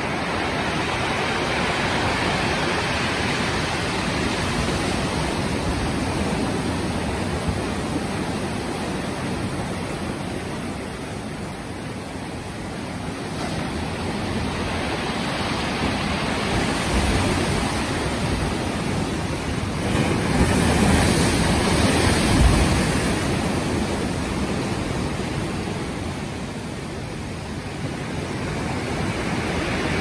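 Ocean surf breaking and foaming among dark boulders on a rocky shore: a continuous rush of water that swells and ebbs with each set of waves, loudest about three quarters of the way through.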